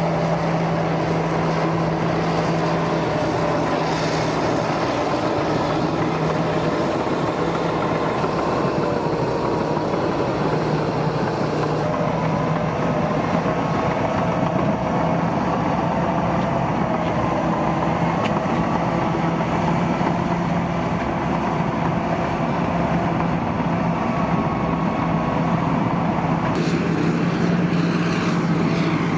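Caterpillar D8K crawler dozers' diesel engines running steadily under load, towing 463G scrapers through topsoil, with a strong constant engine note.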